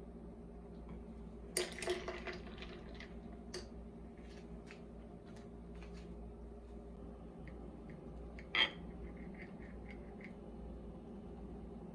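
Cutlery clinking and tapping against a ceramic plate in scattered light clicks, over a faint steady hum. There is a quick cluster of clinks about one and a half seconds in and a single sharper clink about eight and a half seconds in.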